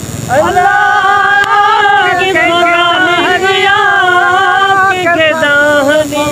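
A single voice singing a slow melody, sliding up into long held notes that waver in pitch.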